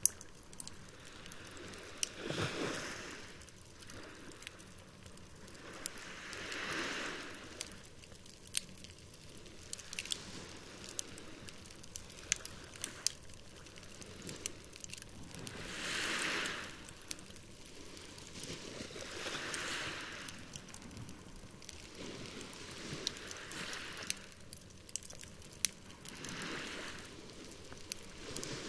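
Campfire crackling, with sharp pops scattered throughout. Behind it, small waves wash ashore, swelling and fading every few seconds.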